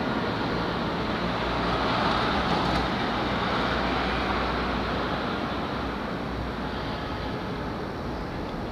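Steady rumble of street traffic, swelling a little about two seconds in and then easing off.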